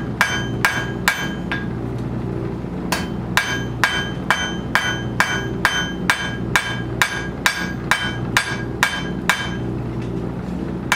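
Blacksmith's round-ended hammer striking hot iron on an anvil to flatten it, a ringing clang with each blow at about two and a half strikes a second. The hammering pauses for about a second and a half early on, then runs steadily until it stops near the end.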